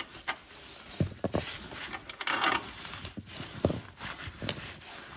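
Steel nuts being taken off the frame-plate bolts of a bolt-on plow mount: scattered light metallic clicks and clinks, with a short scraping stretch a little over two seconds in.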